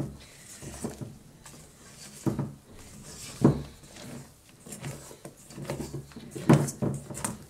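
Spatula folding beaten egg whites into batter in a stainless steel mixing bowl: irregular soft scrapes and knocks against the bowl, the loudest about three and a half and six and a half seconds in.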